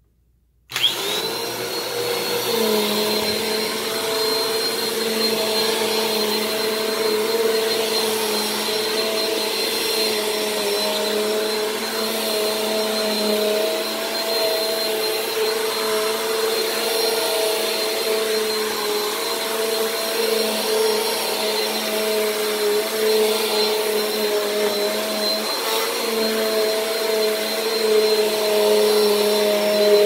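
Bissell PowerForce Compact (model 1520) bagless upright vacuum cleaner switched on about a second in: the motor spins up with a rising whine and then runs steadily with a high whine while the brush rolls over carpet. The owner warns that this motor is not the healthiest.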